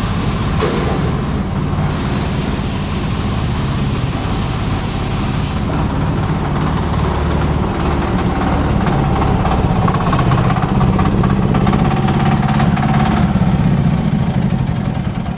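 Engine of a self-loading concrete mixer running steadily, growing a little louder in the second half.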